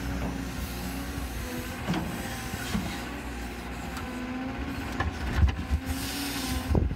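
Cat 314 excavator digging in rocky ground: its diesel engine and hydraulics run steadily, with the bucket knocking and scraping on rock, the sharpest knocks about five seconds in and near the end.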